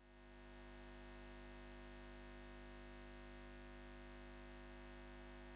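Near silence: a faint steady hum of several constant tones, fading in at the start and fading out at the end.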